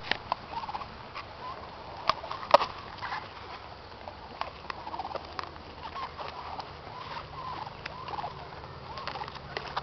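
A goat biting into and chewing a whole apple held in a hand, with sharp crunches at irregular intervals and the loudest bites about two seconds in. Short, pitched calls recur in the background throughout.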